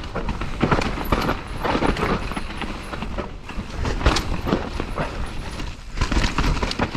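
Enduro mountain bike riding fast down a rough forest trail: tyres rattling over dirt, roots and stones, with the chain and frame clattering in quick, uneven knocks. The rattle eases briefly around three seconds in and again around six seconds in.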